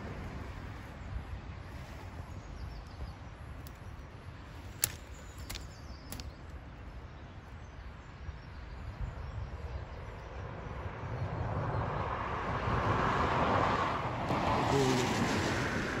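Wind rumbling on the microphone, with a few sharp clicks about five seconds in and a louder rustle building from about eleven seconds in as twigs of a dense, tangled bush brush against the phone.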